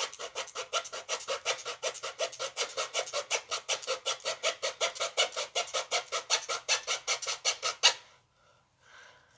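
Small handsaw cutting through wood with rapid, even back-and-forth strokes, each a short rasp, stopping abruptly about eight seconds in.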